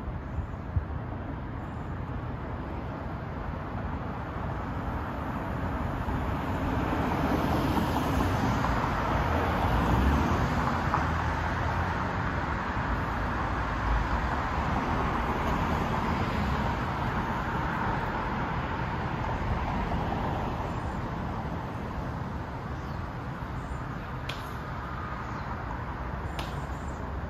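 Steady road-traffic noise that swells for several seconds around the middle, as if a vehicle passes, then settles back.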